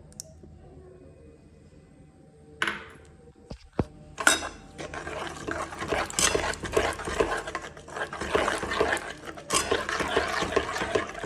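A steel ladle stirs and scrapes curd and masala around a kadhai in quick, repeated strokes. The stirring starts about four seconds in, after a quiet start and a brief burst of noise a little before three seconds.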